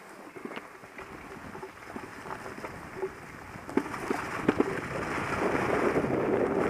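Mountain bike rolling downhill over dry leaf litter: tyres crackling through the leaves, with sharp knocks and rattles from the bike over bumps. Wind on the microphone adds to it, and the whole gets louder after about four seconds.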